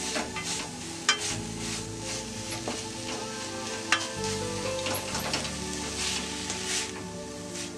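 A slotted spatula stirring and scraping shredded chicken masala in a metal kadai, with the mix sizzling as it is dry-fried and two sharp clacks of the spatula against the pan, about a second in and about four seconds in. Soft background music plays underneath.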